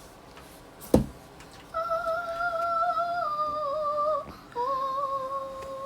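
A person humming two long, nearly level notes, each stepping down slightly in pitch, after a single sharp click about a second in.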